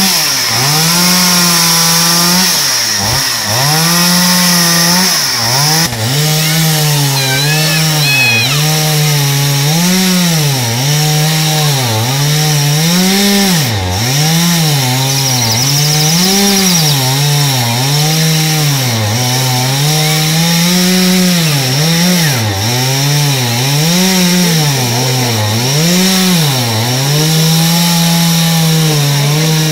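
Two-stroke chainsaw cutting into a wooden stump, its engine revving up and dropping back again and again every second or two as the throttle is worked and the chain bites into the wood.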